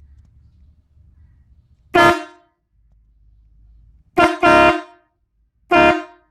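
Homemade truck air horn, fed from a homemade air tank through a solenoid valve taken from a carburetor, sounding short blasts of one steady note: one about two seconds in, a quick pair around four seconds, and another near the end.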